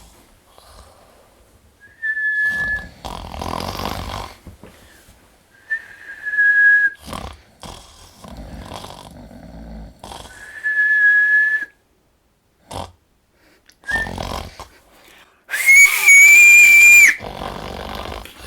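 Snoring alternating with short whistled notes: someone whistles at the snorer, the clichéd way of trying to stop the snoring. Three short steady whistles come a few seconds apart, then a loud, long, shrill whistle near the end.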